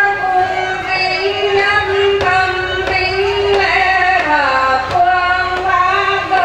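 A woman singing a slow ceremonial chant into a microphone, with long held notes that bend slowly in pitch, and a drum struck now and then.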